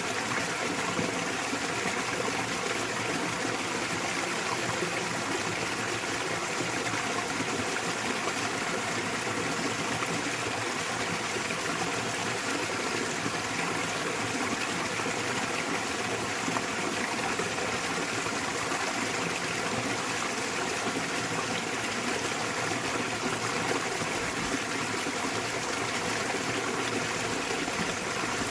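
Small waterfall splashing into a mountain stream: a steady, even rush of falling and flowing water.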